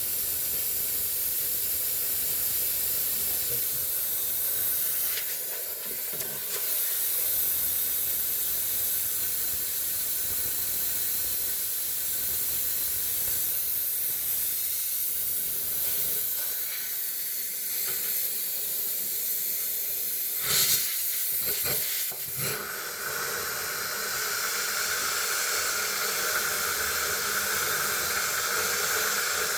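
Steady hiss of a steamer blowing steam onto an iced-up refrigerator freezer evaporator to melt the ice, with a couple of short knocks about two-thirds of the way in.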